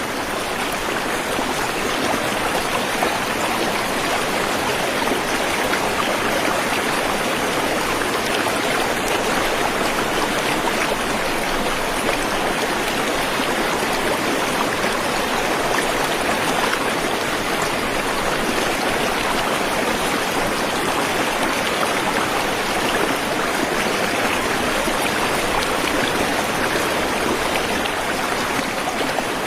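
Waterfall and fast-flowing stream water rushing and splashing in a steady, unbroken wash of sound.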